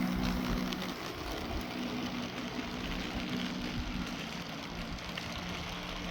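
Electric model train running along the layout's track: a steady motor hum with faint clicking from the wheels on the rails.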